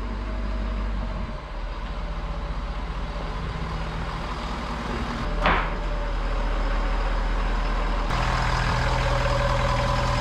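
Ford 6.7-litre Power Stroke V8 turbo-diesel running at low speed, a steady low diesel hum that shifts a little at each of a few cuts. About halfway through there is one short hiss that falls in pitch.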